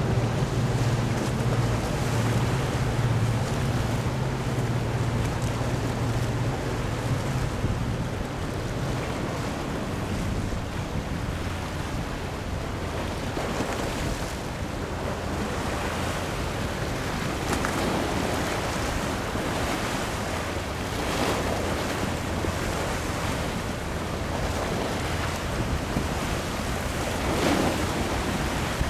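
Wind buffeting the microphone over choppy water, with waves washing. A boat engine hums steadily for the first several seconds, then fades out.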